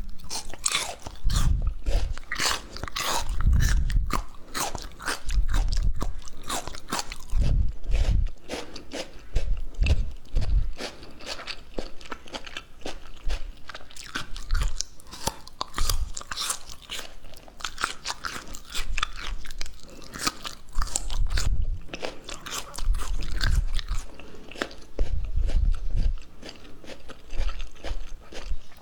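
Close-miked mukbang eating: a person taking quick crunchy bites and chewing, with dense crackling and repeated low thumps every second or two.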